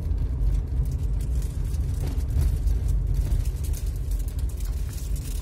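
Car's engine and tyre noise heard from inside the cabin while driving, a steady low rumble.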